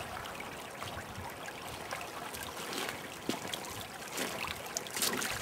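A stream running steadily, with a few footsteps and rustles on the forest floor in the second half.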